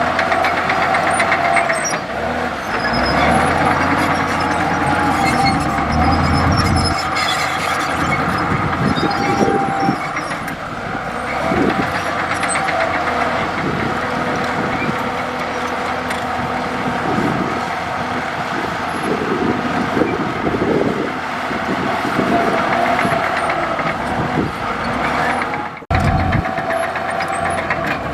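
Komatsu D65E crawler bulldozer working, its diesel engine running steadily with a high whine over the rumble. The sound breaks off for a moment near the end and resumes.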